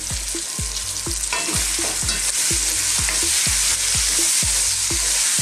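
Lamb pieces sizzling steadily as they sear in hot oil in a Dutch pot over high heat, stirred with a wooden spoon: the meat is being sealed.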